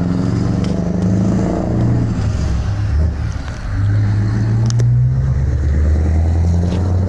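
A motor vehicle's engine running under load with a low engine note that rises in pitch, eases off briefly about halfway through, then pulls strongly again.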